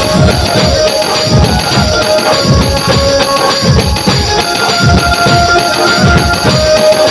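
Dhumal folk band playing: a group of large double-headed drums beaten with sticks in a fast, driving rhythm, with a metallic jingle on top. A melody of long held notes runs over the drums, most clearly in the second half.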